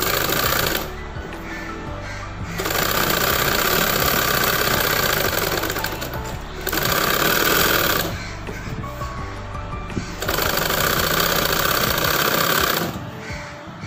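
Sewing machine stitching a seam in spells: it runs for a few seconds, stops briefly about a second in and again near the middle, then runs again before stopping near the end.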